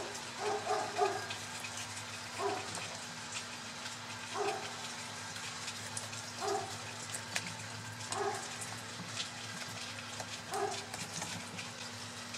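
A dog barking in single barks, about one every two seconds, six in all.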